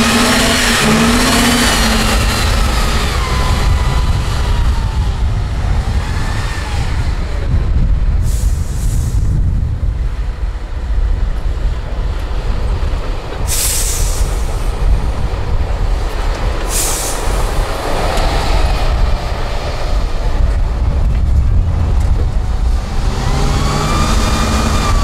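Diesel engine of an 8x8 off-road trial truck working under load as it crawls through a deep dirt trench, its revs rising and falling near the start and again near the end. Three short, sharp hisses of air about eight, thirteen and seventeen seconds in.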